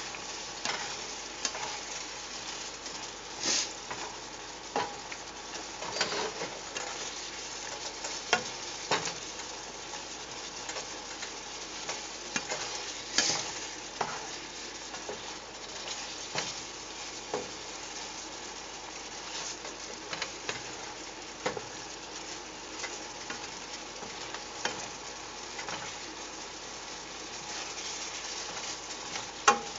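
Asparagus sizzling in a pan of thickening garlic sauce, a steady hiss, with frequent irregular clicks and scrapes of a utensil stirring it to keep it from sticking.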